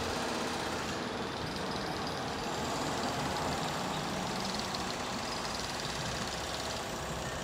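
Steady engine and running noise of an approaching NJ Transit train's locomotive.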